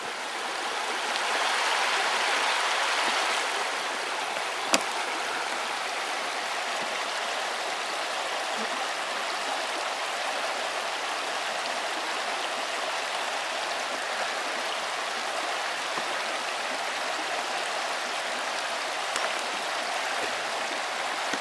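Shallow river running over stones: a steady rush of flowing water, louder for a few seconds near the start, with one sharp click about five seconds in.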